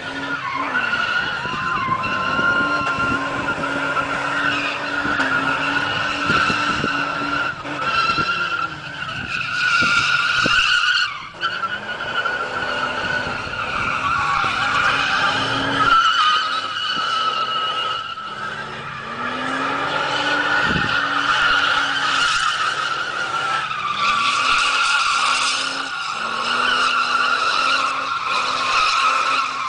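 VX Holden Commodore's 3.8-litre V6, manual with factory limited-slip diff, held at high revs in a burnout while the rear tyres spin and squeal steadily. The engine note drops and climbs back up several times as the revs are worked, with a brief dip in loudness about eleven seconds in.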